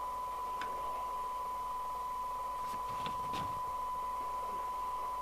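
Steady test tone from an FM CB radio receiving a tone-modulated signal from a signal generator during receive alignment. A few light clicks sound, one about half a second in and a small cluster around three seconds in.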